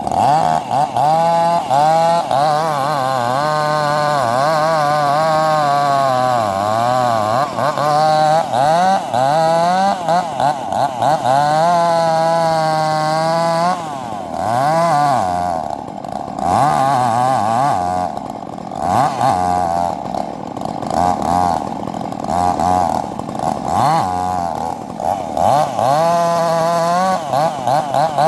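Two-stroke chainsaw running loudly, its engine speed rising and falling over and over as the throttle is worked, with quicker short revs in the second half.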